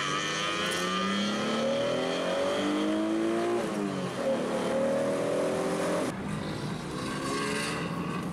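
Straight-piped, naturally aspirated Mitsubishi 3000GT V6, with no pre-cats or resonators, accelerating hard: the exhaust note climbs, drops at an upshift about four seconds in, and climbs again. About six seconds in it eases off to a quieter, steady run.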